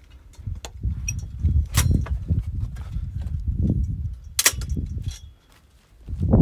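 Wind buffeting a handheld phone's microphone in uneven low rumbles, with footsteps on a grassy, stony trail and two sharp clicks about two and four and a half seconds in.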